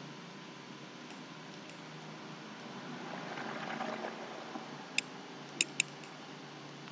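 Three computer mouse clicks, the last two close together, over a low steady hum and hiss. A soft swell of noise comes a little before the clicks.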